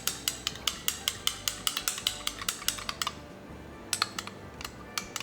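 Liquid plastisol being stirred in a cup with a stirring utensil, which clinks against the side about six or seven times a second. The stirring stops about three seconds in, followed by a few single clinks.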